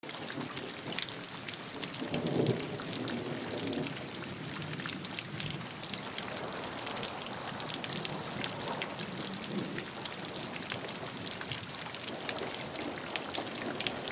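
Steady rain falling on tree foliage, a continuous hiss full of many sharp individual drop hits. A low rumble about two seconds in is the loudest moment.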